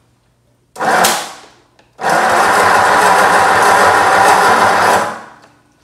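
6-volt starter cranking a rebuilt 1937 Ford flathead V8-60: a short bump about a second in, then about three seconds of steady cranking that stops abruptly without the engine catching, while its Stromberg carburettor floods fuel.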